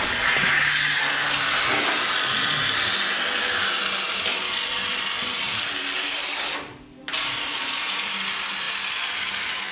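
Compressed-air canister spray gun with an extension wand hissing steadily as it sprays rust-prevention treatment into the roof perimeter seams. The spray cuts out for about half a second around seven seconds in, then resumes.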